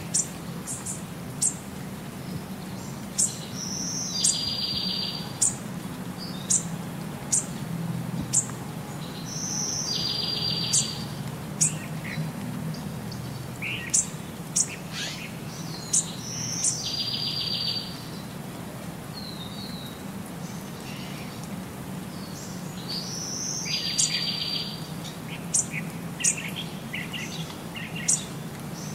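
Small birds chirping: short high chirps throughout, with a brief buzzy trill that recurs about every six to seven seconds, over a steady low hum.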